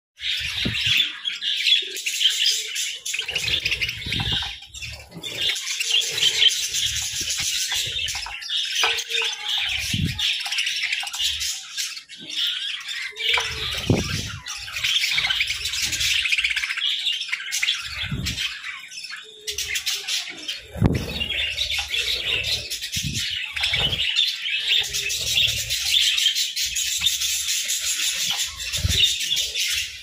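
A flock of budgerigars chattering and warbling nonstop, many birds at once, with scattered soft low thumps among the chirps.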